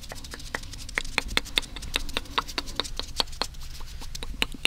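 Close-up, layered ASMR mouth sounds: a rapid run of wet tongue clicks and pops, many a second.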